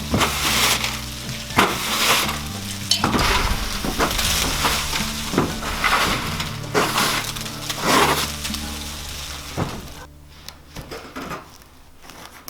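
Background music: a low bass line stepping between notes under a brushy, hissing rhythm about once a second, fading down about ten seconds in.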